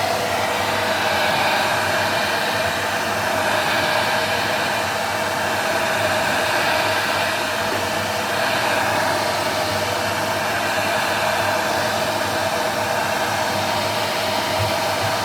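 Hand-held hair dryer blowing steadily, with a constant hum under the rush of air, defrosting the iced-up area around a fridge freezer's cooling fan.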